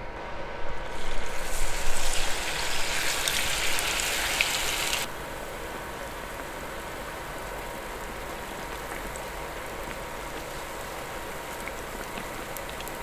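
Battered gabin crackers frying in hot oil in a pan. The sizzle is loud for the first few seconds, as battered pieces go into the oil, then settles about five seconds in to a steady, quieter sizzle.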